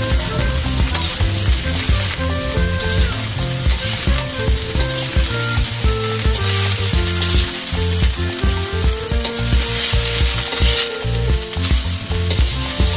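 Rice sizzling as it fries in a hot stainless-steel wok, with a slotted metal spatula stirring and scraping it around the pan.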